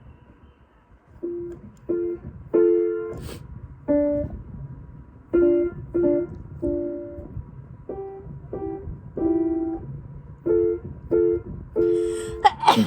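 Piano keys pressed by a puppy's paws: about a dozen separate clusters of two or three notes struck at once, each left to fade, at uneven intervals. Near the end a loud noisy burst cuts in, a person's sneeze.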